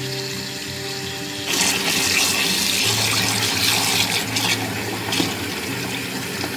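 Kitchen tap water running into a glass bowl of frozen prawns in a sink, thawing them under the stream. The pouring grows louder and splashier about a second and a half in, as hands stir the prawns in the filling bowl.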